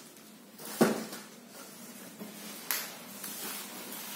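Plastic wrapping rustling and crinkling as a small wrapped part is handled and opened, with a sharp knock about a second in and a crisp crackle near three seconds.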